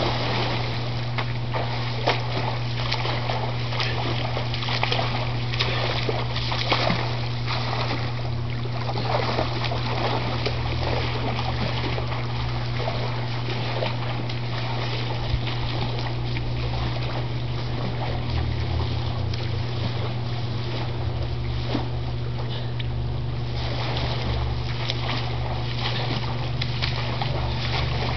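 Irregular splashing and sloshing of someone swimming in a pool of liquid, over a steady low hum.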